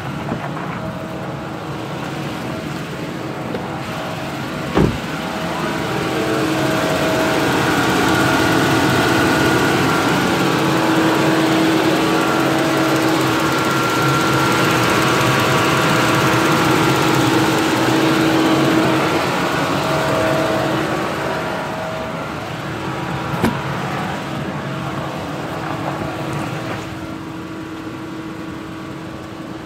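2015 Chevy Cruze engine running steadily with a high whine over it, louder in the middle stretch when heard up close in the engine bay. A sharp knock about five seconds in and a smaller click later.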